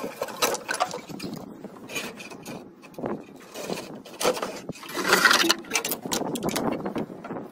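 Irregular scraping and rubbing as a wiring harness in a braided sleeve is handled and pulled through a Jeep's metal body, with a louder scrape about five seconds in.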